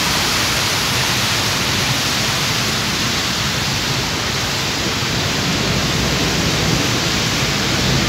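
Heavy rain falling steadily: a dense, even hiss with no let-up.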